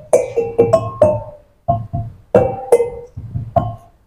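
Caklempong, a set of small bronze kettle gongs, struck one note after another in an irregular run of about a dozen ringing notes, with a short pause about one and a half seconds in.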